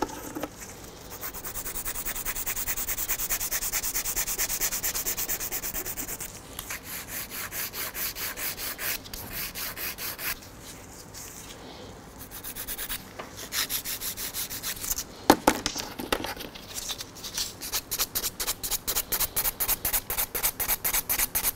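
Hand nail file rasping in quick back-and-forth strokes along the side of an acrylic nail to straighten its shape, with a brief lull partway through and one sharp tap about fifteen seconds in.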